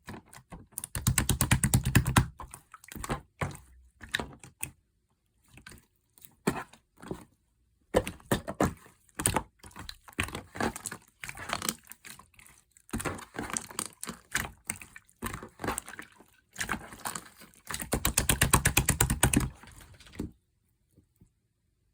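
Keyboard typing: irregular keystrokes, with two fast runs of rapid key clicks, one about a second in and one near the end. The typing stops shortly before the end.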